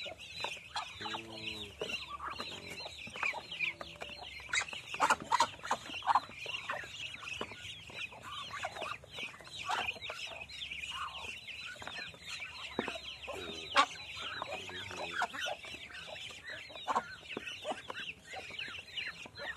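A flock of Muscovy ducks feeding from a metal basin: many short clicks and knocks of bills pecking at the feed and the basin, over a dense chorus of high chirping. A short low call comes about a second in.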